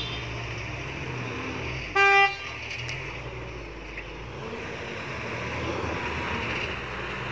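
A vehicle horn gives one short toot about two seconds in, over the steady low running of pickup truck engines.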